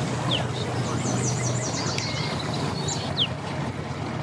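Mercury outboard motor on a Bass Tracker bass boat running at low speed, a steady low hum that thins out about halfway through. Birds chirp over it, with a few quick falling chirps and a fast trill about a second in.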